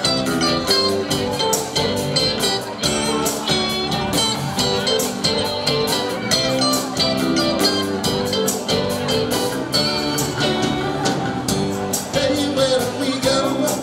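Music: a rock song with a steady beat.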